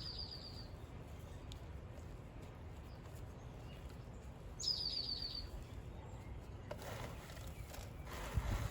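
A small bird calls twice, about five seconds apart. Each call is a quick, high run of notes that falls slightly in pitch, heard over a steady low background rumble.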